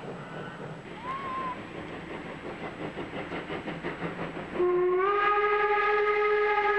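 Deutsche Reichsbahn class 86 steam tank locomotive working, its exhaust beats coming in a steady rhythm, then a long blast on its steam whistle starts suddenly about four and a half seconds in and is still sounding at the end.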